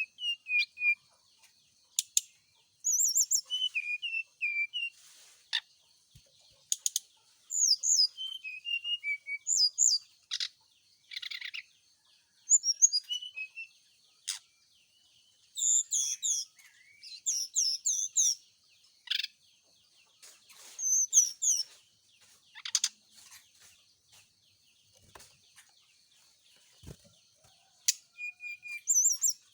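Brown-chested jungle flycatcher singing: bouts of short, quick, high whistled phrases and chattering notes with pauses between, mixed with sharp clicks.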